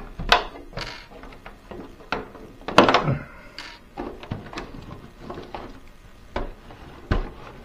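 A scalpel cutting a thin polycarbonate RC car body shell, with irregular sharp clicks, scrapes and knocks as the shell flexes and is handled. The loudest knocks come near the start, about three seconds in, and near the end.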